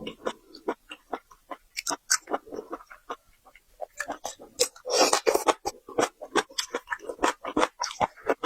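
A person chewing and biting seafood close to the microphone: quick, irregular wet clicks and crunches, bunching into a denser stretch about five seconds in.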